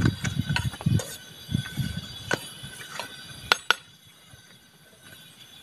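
Light clinks and taps of a utensil against a container, a handful of them spread over the first few seconds, the sharpest about three and a half seconds in. Dull handling thumps come with them in the first two seconds. It grows quieter after about four seconds.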